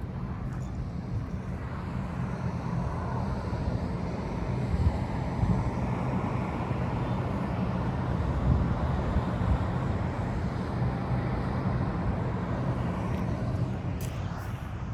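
Outdoor traffic noise: a steady low rumble with a broad hiss that swells through the middle, as a vehicle goes by, then eases off.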